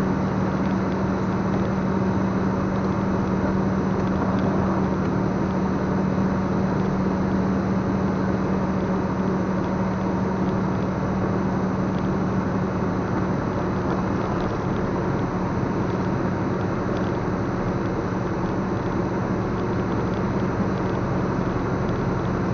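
A moving vehicle heard from inside: its engine runs with a constant low hum over steady tyre noise on a wet road.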